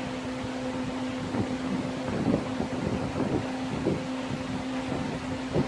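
Electric heat gun running with a steady hum and rush of air, curing liquid vinyl on a seat repair, with scattered light handling knocks.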